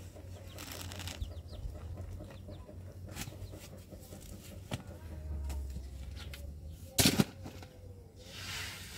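Chickens clucking, with a few sharp knocks and a louder double clatter about seven seconds in.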